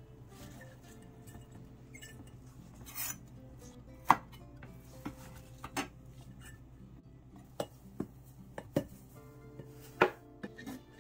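Chef's knife on a wooden cutting board, chopping and scraping radish greens: irregular sharp knocks of the blade on the board, with a short scrape about three seconds in.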